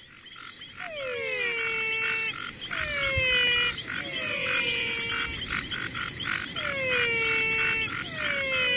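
Animal chorus in the soundtrack: a steady high insect-like drone under repeated calls that glide downward in pitch, roughly one a second. It swells in over the first couple of seconds.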